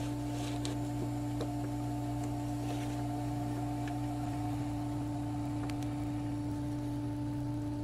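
GBC HeatSeal H200 pouch laminator running, its roller drive motor giving a steady hum as a laminating pouch is pulled through the heated rollers, with a few faint ticks.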